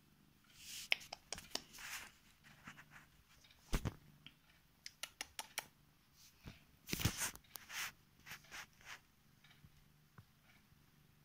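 Intermittent rustling and scratchy brushing as a hand strokes a cat's fur on a bedspread, with a dull bump about four seconds in and another about seven seconds in.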